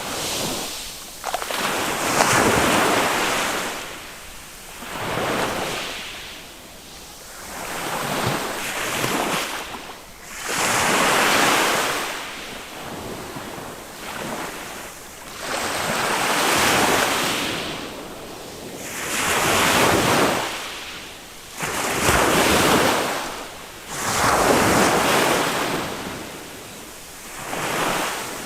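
Small waves of a calm Mediterranean sea breaking on a sand beach, one after another every few seconds, each a rush of surf that swells and fades.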